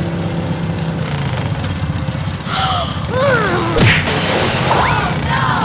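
Cartoon car engine running with a steady hum, then, about halfway through, a sudden burst followed by quick whistling sound effects that glide up and down in pitch.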